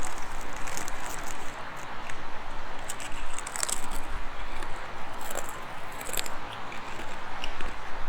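Close-up chewing of crunchy curly fries, with a few short crackles over a steady rush of wind on the microphone.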